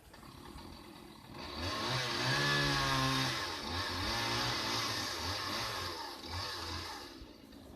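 Chainsaw engine running and revving, its pitch wavering as it works; it grows loud about a second and a half in and fades away near the end.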